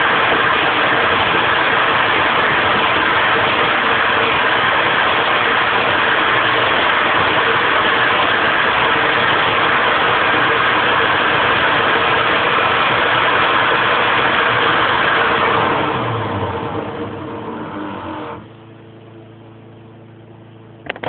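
Handheld leaf blower running steadily at full output, supplying the air that drives a float-and-ratchet gravity engine. Near the end it winds down over about two seconds and cuts off, leaving a quieter steady hum.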